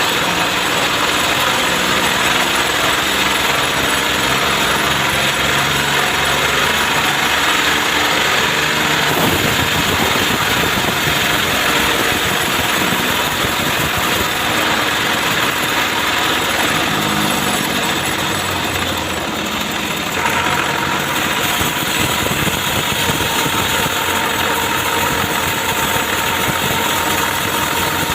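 Gasoline chainsaw running continuously on a trembesi trunk, its sound changing about a third of the way in and again past the middle as the load on the saw shifts.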